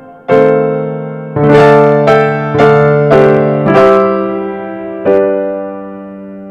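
Background piano music: single notes and chords struck every half second or so, each left to ring and fade, with the last chord dying away slowly near the end.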